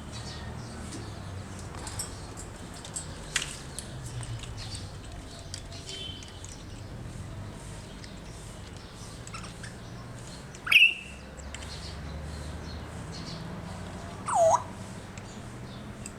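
African grey parrots calling: faint chirps and clicks, then two loud whistles, a sharp rising one about two-thirds of the way through and a shorter bending one near the end, over a steady low hum.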